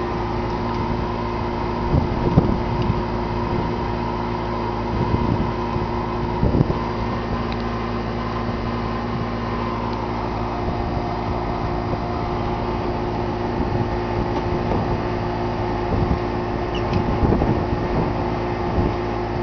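A steady mechanical hum holding several fixed pitches, with a few short low thumps and knocks, about two seconds in, near six and a half seconds and near the end.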